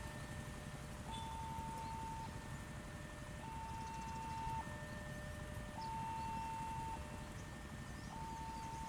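Faint electronic two-tone alarm, alternating steadily between a high and a low tone, each held a little over a second, over a low rumble.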